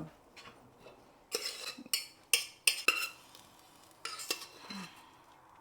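A spoon scraping and clinking against a metal pot while scooping thick rice kanji, in several short separate strokes.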